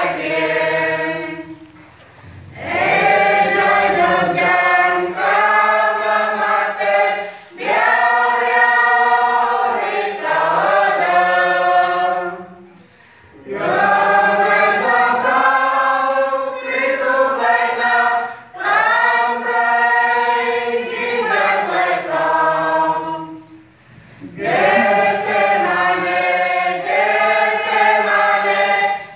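Mixed church choir of men and women singing a hymn together from hymnbooks, in long phrases broken by short pauses for breath.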